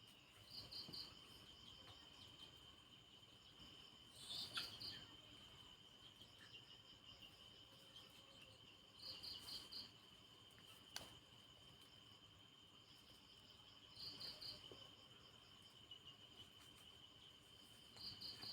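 Night insects: a faint, steady high cricket trill, with a short chirp of about four quick pulses repeating every four to five seconds. A single faint click comes about eleven seconds in.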